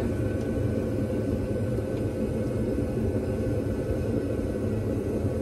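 A steady low rumble with an even hiss and a faint steady high tone, unchanging throughout, like machinery running in the background.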